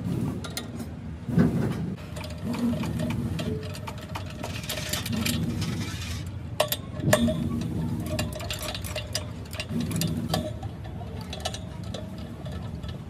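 Ratchet wrench clicking as bolts on a truck clutch pressure plate are turned, with metal tools clinking and a few sharper knocks, the loudest about a second and a half in and again near the middle.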